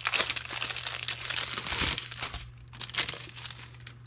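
Plastic packaging crinkling as it is handled and unwrapped. The rustle is dense for about two seconds, dies down, then comes back briefly near the end.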